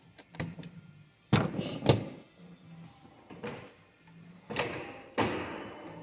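Sharp clicks and clacks of hand tools working plastic housing clips and parts on an automotive coolant valve's electric actuator motor, a few separate knocks with short pauses between.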